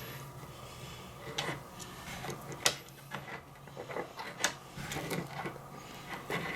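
Scattered clicks and rattles of plastic wiring connectors being handled and plugged together, with two sharper clicks about two and a half and four and a half seconds in.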